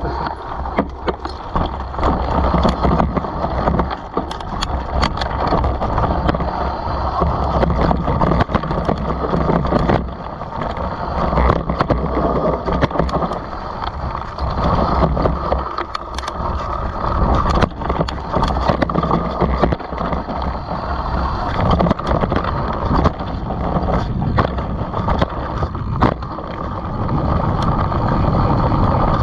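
Mountain bike descending a dirt singletrack: knobby tyres rolling over dirt and dry leaves, with frequent clicks and knocks of the bike rattling over bumps, under a steady rumble of wind on the microphone.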